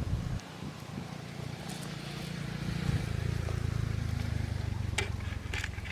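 A small engine running steadily with an even pulse, growing louder about two seconds in, with a few sharp clicks near the end.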